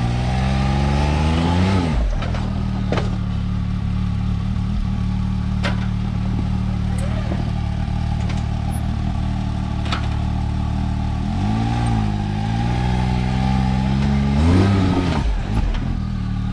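Can-Am Maverick X3 XRS's turbocharged three-cylinder engine running under load on a rocky climb, revving up and dropping back three times: near the start, about twelve seconds in, and near the end. A few sharp knocks sound over it.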